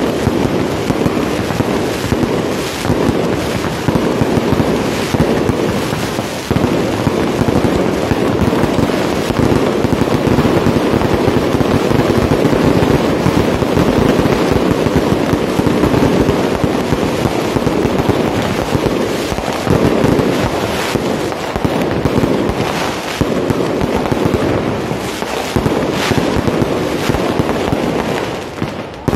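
Aerial fireworks going off in a continuous barrage: a dense, unbroken crackle of bursts, with louder single bangs standing out now and then.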